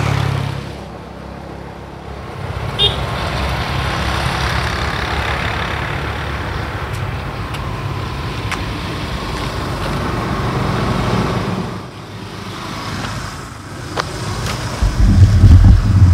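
A motor vehicle passing along the road: a steady engine and tyre noise that swells and then falls away about twelve seconds in. Loud low thuds follow near the end.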